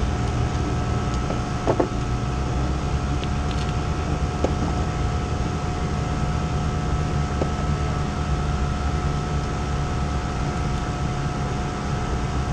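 A micro sprint's Yamaha R6 inline-four motorcycle engine idling steadily with the car at rest, with a few faint clicks.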